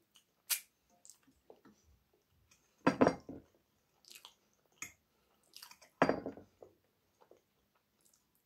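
Close-miked chewing and mouth sounds of a person eating, in uneven bursts, with two louder ones about three and six seconds in.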